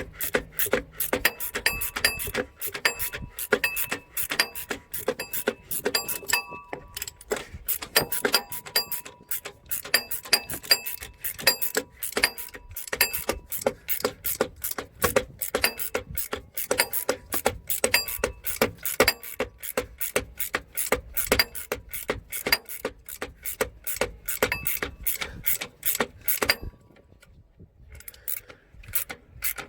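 Ratcheting wrench clicking rapidly and evenly, about three metallic clicks a second, as the alternator's mounting bolt is tightened to tension a new drive belt; the clicking pauses briefly near the end.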